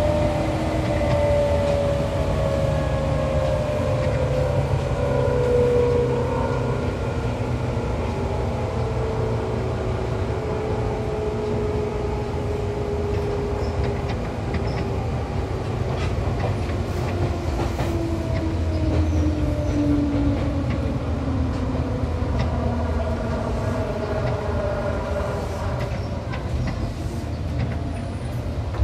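Seibu 263F electric train heard from on board, its motor whine falling steadily in pitch as the train slows, over a constant rumble of wheels on rail. A few sharp clicks come in the second half.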